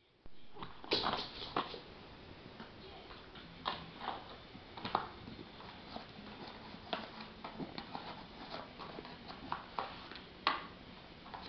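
A Shih Tzu chewing and tearing at a paper plate: irregular crackling and ripping of paper, with a handful of sharper, louder crackles.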